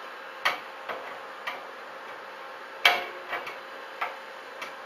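Irregular sharp metallic clicks and taps as a screwdriver works the screws fixing a 3D printer's heating platform to its metal Z-axis supporter, about eight in all, the loudest about three seconds in, over a faint steady hum.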